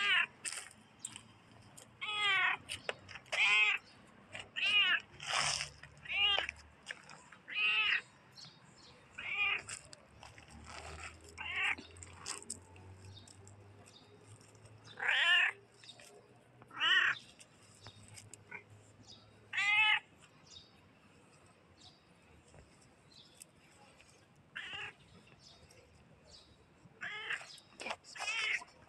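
A cat meowing over and over in short calls, about one a second at first. The calls then come further apart, and after a pause of a few seconds there is a last quick run of meows.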